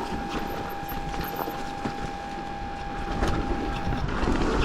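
Pivot Shuttle LT electric mountain bike rolling down a muddy trail: a steady buzz from the freehub ratchet while coasting, with chain and frame rattling over bumps. About four seconds in the buzz stops and the rolling noise gets louder, with a rising whine near the end.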